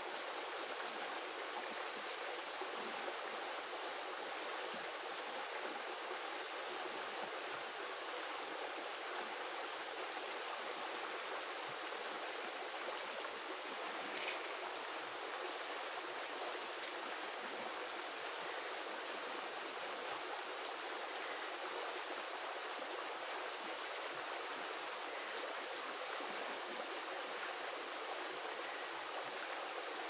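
Fast-flowing mountain stream rushing over rocks in a small cascade: a steady, even rush of water with little deep sound.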